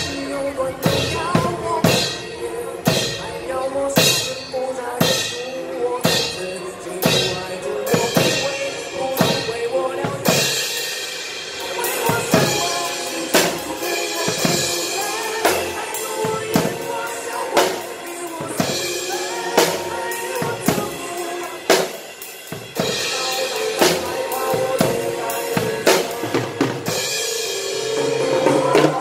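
Acoustic drum kit played to a steady beat, bass drum, snare and cymbals, over a recorded backing track of pop music.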